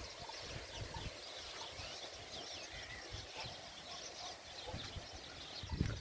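Small birds chirping and twittering in a continuous, faint chorus, with a soft low rumble underneath.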